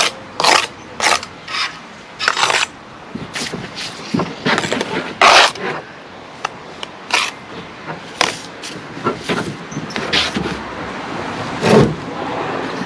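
Steel bricklaying trowel scraping and tapping wet sand-and-cement mortar on concrete blocks: a run of short, irregular scrapes and knocks, with one louder knock near the end.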